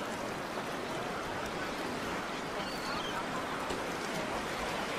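Steady rushing background noise with a faint murmur of voices beneath it, and a brief high whistle a little past halfway.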